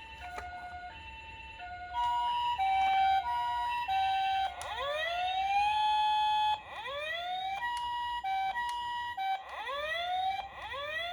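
Electronic siren of a toy ambulance minicar, alternating between a two-note high-low tone and repeated rising wails. It gets markedly louder about two seconds in.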